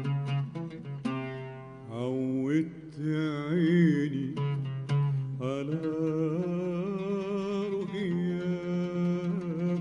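Arabic classical music: an oud plucks quick notes, and about two seconds in a sustained melody line with slides and vibrato comes in over it.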